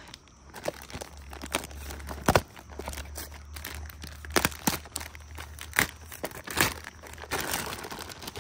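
Thin clear plastic packaging bag crinkling and rustling in the hands as a toy truck is unpacked from it, in many small irregular crackles, with one sharper knock about two seconds in.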